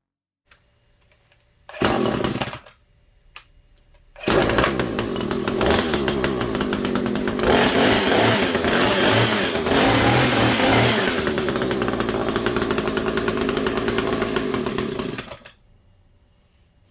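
Echo HC-245 hedge trimmer's small two-stroke engine being pull-started: it fires briefly and dies about two seconds in, then catches on the next try about four seconds in, runs for about eleven seconds and cuts off suddenly. The trimmer is newly repaired.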